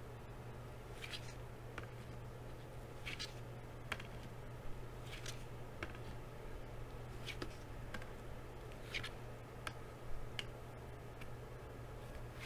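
Trading cards being handled and slid against one another and the table: a soft swish about every two seconds, with light taps and ticks in between.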